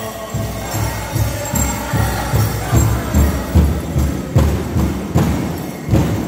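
Powwow drum group beating a big drum in a steady beat, about two to three strokes a second, with voices singing over it and the jingle of dancers' bells.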